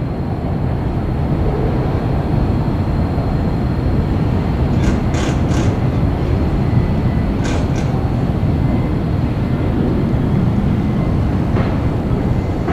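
Train running with a steady low rumble of engine and wheels, broken by a few short, sharp clicks about five, seven and eleven seconds in.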